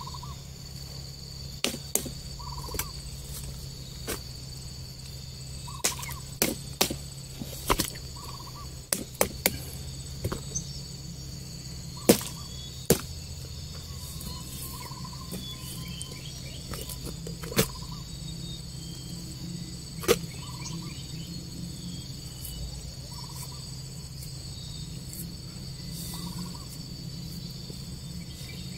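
Cassava roots being handled and dropped into a woven plastic basket: irregular sharp knocks and snaps, a dozen or more, over a steady high buzz of insects. A short call repeats every two to three seconds in the background.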